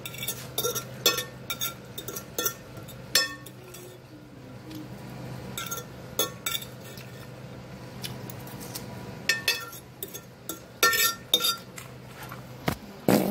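Metal fork clinking and scraping against a ceramic plate while picking up the last of a salad: irregular sharp clinks, each with a short ring from the plate, in clusters with a lull in the middle. A faint steady hum lies underneath.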